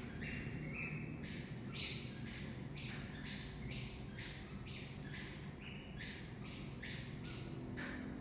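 A child making a rapid, regular run of short high-pitched squeaks in a corridor, about two or three a second, stepping up and down in pitch over a steady low hum.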